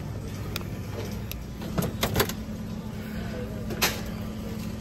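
Grocery store background: a steady low hum, with a few short clicks and rustles about two seconds in and again near four seconds.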